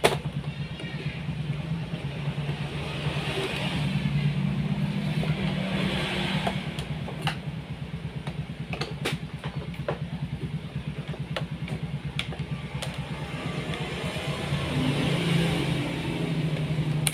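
An engine running steadily: a low drone with a fast, even pulse, with a few sharp clicks over it.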